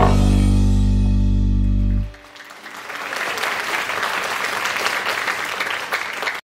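The dance music ends on a held final chord that stops about two seconds in. Audience applause then builds and goes on steadily until it cuts off abruptly near the end.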